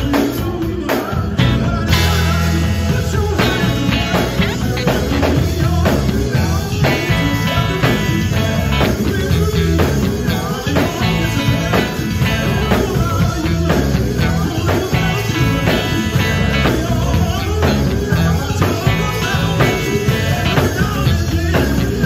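Live gospel band playing with a steady beat: electric bass, electric guitar and drum kit, with a lead singer's voice through the PA over them.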